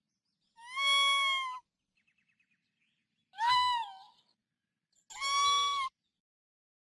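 Raccoon dog giving three high-pitched whining calls, each under a second long, some dipping in pitch at the end. A faint quick run of ticks comes between the first two calls.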